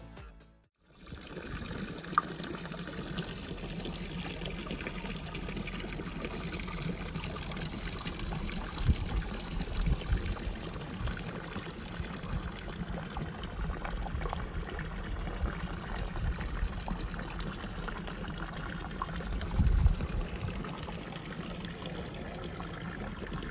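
A stream of water pouring steadily from a fountain's metal spout and splashing below, with a couple of brief low rumbles partway through.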